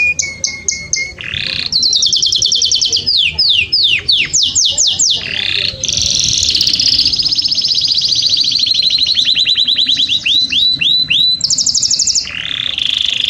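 Domestic canary singing a loud, continuous song of rapid trills, passing every second or two into a new phrase: a held whistle, fast repeated notes, and runs of falling sweeps.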